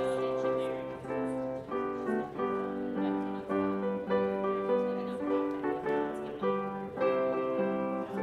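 Keyboard prelude music: slow, held chords that change about every half second to a second, played in a church before the service begins.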